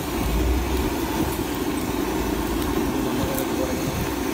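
Pentol frying in a street cart's deep fryer, the oil sizzling steadily as they are stirred, over a low steady rumble that is strongest in the first second.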